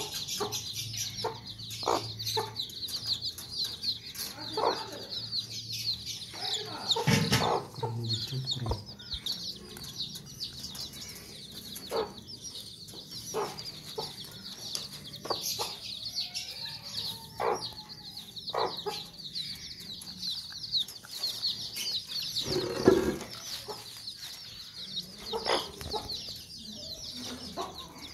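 A brood of chicks peeping continuously in a high, busy chorus, while a Sussex mother hen gives short clucks every second or so. A couple of louder calls or scuffles stand out, about a quarter of the way in and again near the end.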